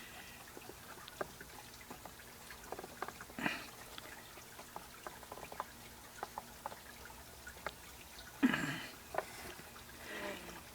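Faint scattered clicks and light knocks of hand work as a threaded 1/4-inch bolt on a small crank arm is screwed into a drilled wooden blank. There is a short, louder rustle about eight seconds in.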